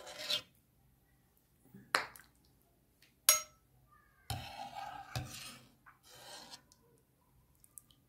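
A metal ladle scooping soup from a stainless steel pot and pouring it into a bowl, with several short clinks and scrapes of the ladle against the pot and bowl, one of them ringing briefly.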